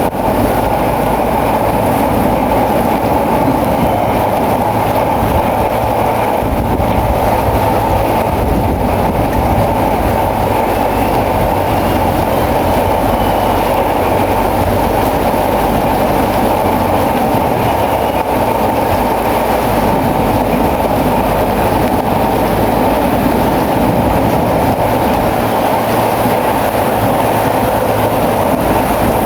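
Bulldozer working: a steady, loud engine with the continuous clatter of its steel tracks.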